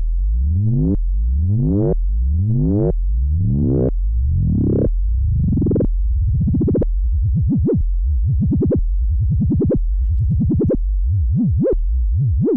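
LushOne modular synthesizer playing a wobbling bass line: a steady low note whose tone sweeps brighter about once a second, each sweep cutting off sharply, then about halfway through quicker, shorter wobbles about twice a second that grow and shrink in height. A kind of proto-dubstep bass.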